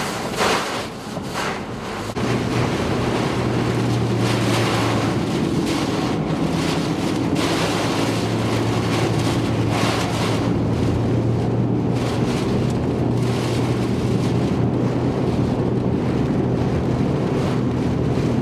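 Strong storm winds gusting and buffeting the microphone. About two seconds in, a steady low mechanical hum joins the wind and runs on under it.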